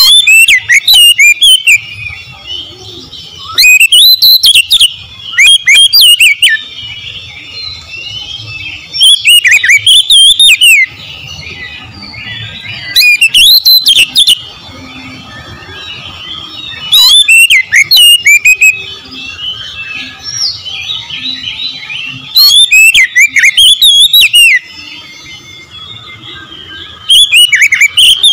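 Oriental magpie-robin singing: loud, varied phrases of quick rising and falling whistles and trills, each a second or two long, about eight times with short gaps. Fainter chirping carries on between the phrases.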